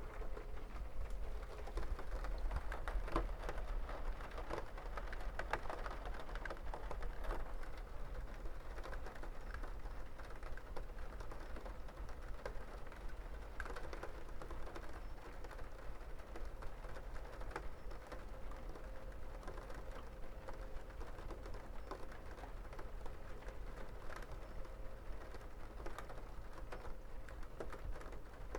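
Rain falling, with scattered close drops tapping irregularly over a steady patter and a low rumble.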